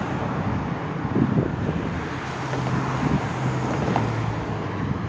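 Road traffic passing on a bridge, with wind buffeting the phone's microphone. A vehicle engine's low hum rises about two seconds in and fades near the end.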